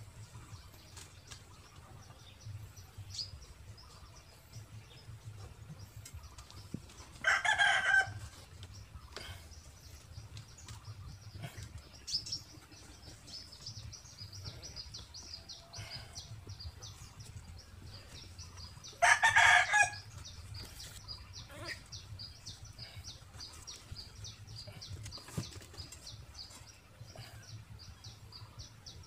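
A rooster crowing twice, about twelve seconds apart, each call short and loud, over a fast high chirping of insects or small birds.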